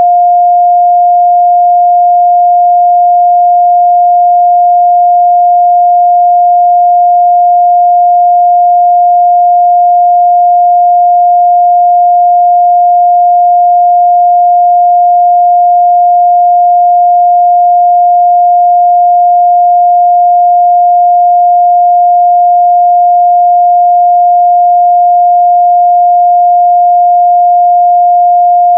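A steady, loud pure 706 Hz sine-wave test tone held at one pitch and level.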